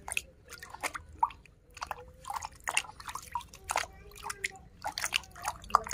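A hand scrubbing a toy in a bucket of muddy water: irregular splashing and dripping as the water is churned.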